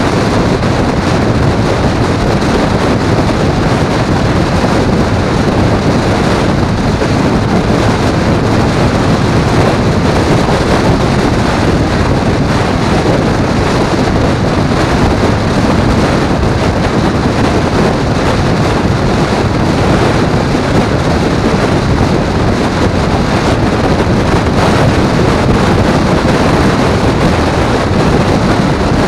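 Steady, loud wind rush over the microphone at highway speed, with road and engine noise from the ride mixed in underneath.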